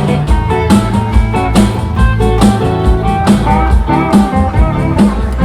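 Live band playing an instrumental passage: guitar notes over bass and a steady drum beat, with no singing.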